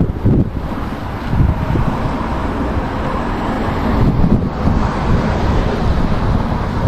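Wind buffeting the microphone: a loud, low rumble that rises and falls in gusts.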